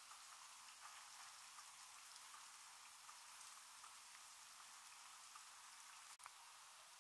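Faint patter of light rain falling on standing floodwater: a soft even hiss dotted with tiny drop ticks.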